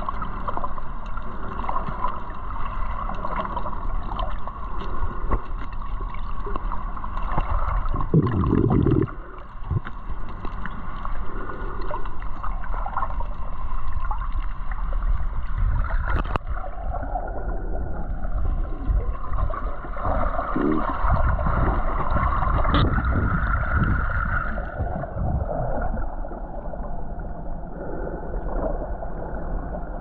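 Muffled underwater water noise picked up by a submerged camera: a steady sloshing, gurgling wash with uneven low rumbles, the loudest about eight seconds in.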